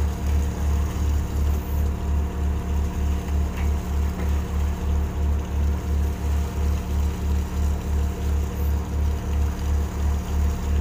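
Shrimp trawler's engine running with a steady low drone that pulses evenly about three to four times a second.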